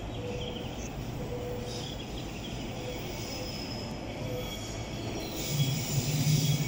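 JR East E721 series electric train pulling into the platform. Its running noise is steady at first and grows clearly louder from about five seconds in as it draws near.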